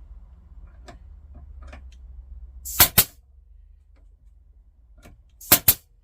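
Nail gun firing twice, each shot a sharp double crack, about two and a half seconds apart, tacking pins through the back of a glued frame joint into its tenons. Faint clicks of handling come between the shots.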